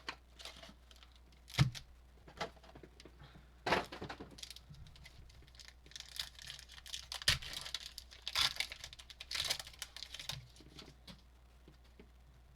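Plastic trading card pack wrappers being torn open and crinkled. There are sharp taps about one and a half, three and a half and seven seconds in.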